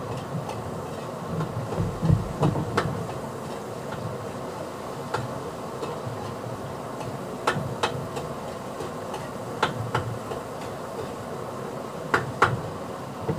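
Kitchen clatter: a handful of sharp knocks and clinks of cookware and utensils, some in quick pairs, over a steady low hiss.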